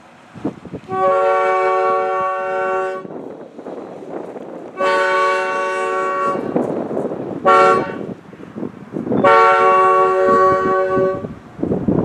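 Railroad air horn blown on compressed air in four steady blasts, long, long, short, long: the grade-crossing signal.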